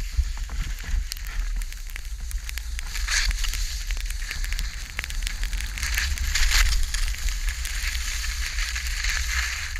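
Skis sliding and scraping over snow, a crackly hiss that swells with the turns about three seconds in and again around six seconds in, over a steady low rumble.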